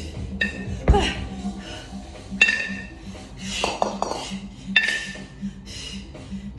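A pair of 18 kg competition kettlebells clanking against each other with a short metallic ring as they are dropped from the rack, swung and cleaned back up. There are several clanks and a heavy thud about a second in.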